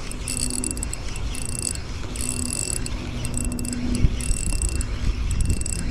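Daiwa Emeraldas Air LT 2500 spinning reel being cranked fast in repeated short bursts while bringing in a hooked fish, its gears whirring with each burst of turns. A steady low rumble runs underneath.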